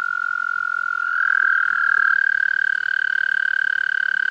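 Two toads trilling: one long, steady, high trill, joined about a second in by a second, slightly higher trill that overlaps it. These are male toads' breeding calls.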